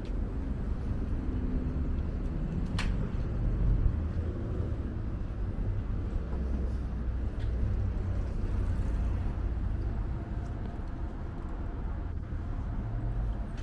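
Road traffic on a city street: a steady low rumble of passing cars and buses, with one short sharp click about three seconds in.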